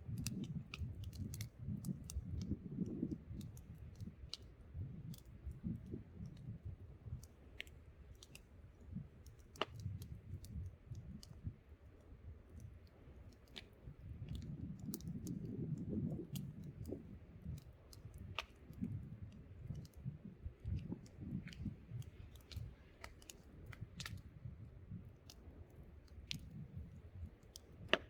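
Wood campfire crackling, with irregular sharp pops and clicks. Gusts of wind buffet the microphone as a low rumble that swells and fades.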